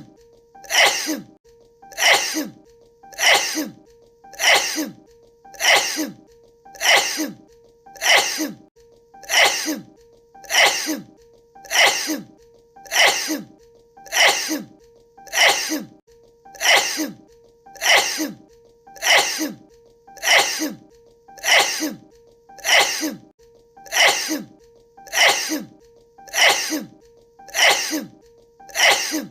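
A woman's sneeze, looped: the same short sneeze repeats evenly, a little over a second apart, about two dozen times. A faint steady tone runs underneath.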